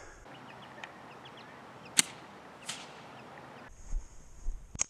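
Firework pops: one loud, sharp crack about two seconds in and a weaker one under a second later, with a few fainter clicks before and a sharp tick near the end.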